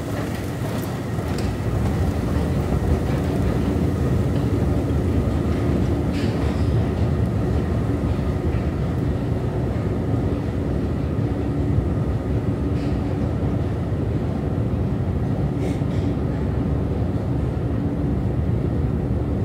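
Long subway escalator running while being ridden down: a steady mechanical rumble with a low hum, growing louder in the first second or two as the rider gets onto the steps, with a few faint clicks.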